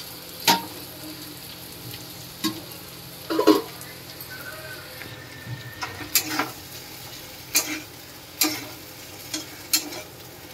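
Taro root pieces frying in masala in a metal kadhai: a steady sizzle, with irregular scrapes and clanks of a metal spatula against the pan as it is stirred, about nine sharp knocks in all.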